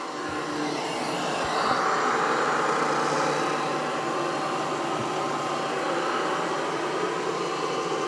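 SwitchBot K10+ Pro mini robot vacuum running: a steady whir of its suction fan and brushes, swelling slightly about a second and a half in.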